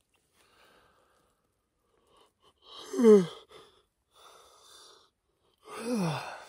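A man yawning twice, about three seconds in and again near the end. Each yawn ends in a loud voiced exhale that falls in pitch, and a breath is drawn in between the two.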